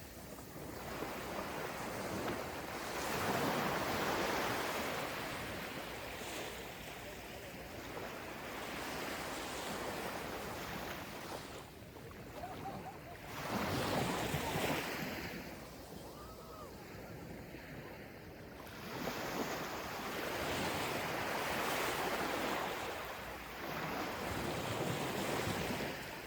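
Gentle ocean waves breaking and washing up onto a sandy beach. The wash swells and fades in slow surges, with three or four larger waves coming in over the stretch.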